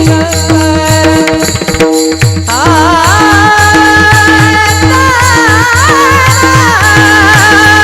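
Marathi devotional abhang singing with a steady drum beat. Instrumental tones play alone at first. A solo male voice comes in about two and a half seconds in, holding long, wavering notes over the beat.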